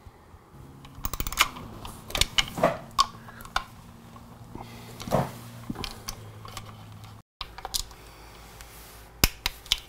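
Ratcheting torque wrench clicking in short runs as small engine-cover bolts are snugged down a little at a time, not yet to full torque. There is a quick run of clicks about a second in, then scattered clicks and taps.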